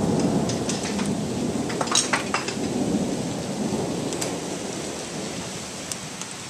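Rolling thunder rumbling, loudest at the start and dying away, over steady rain. A few sharp ticks sound about two seconds in.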